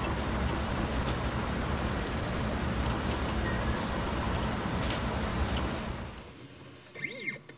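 A small hydraulic press runs steadily with a low hum and hiss while PEM nuts are pressed into an aluminium hinge, with a few faint clicks. The sound fades out about six seconds in, and a synthesized sweeping chirp begins near the end.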